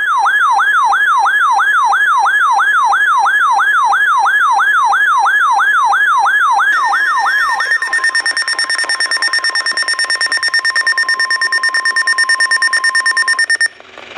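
Electronic emergency-alert tones. A whooping tone sweeps up and down about two and a half times a second for roughly eight seconds, then gives way to a rapidly pulsing steady alarm tone that cuts off shortly before the end.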